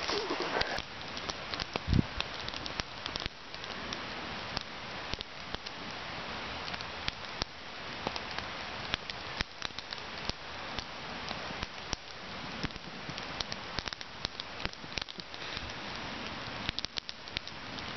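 Wood campfire burning: a steady hiss with many irregular crackles and pops, and one dull knock about two seconds in.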